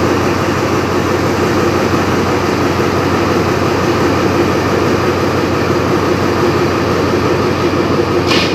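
Alsthom diesel-electric locomotive idling steadily, a low engine hum and drone, with a short hiss near the end.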